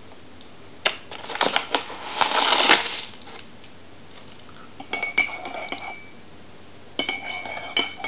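Teaspoon stirring sugar into tea in a ceramic mug: a few clicks and a scraping rustle, then two runs of clinks against the mug about five and seven seconds in, each leaving a short ring.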